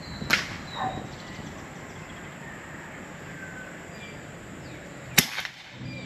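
Air rifle firing, two sharp cracks: one about a third of a second in, and a louder one about five seconds in. A duller knock follows just after the first crack, and birds chirp faintly in between.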